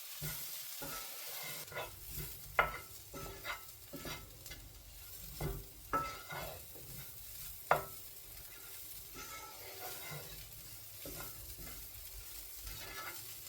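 Sliced mushrooms sizzling as they fry in oil and curry spices in a pan, stirred with a utensil that knocks and scrapes against the pan now and then.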